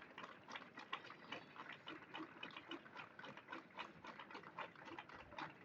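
Faint, irregular clicks and taps, several a second, over quiet background noise.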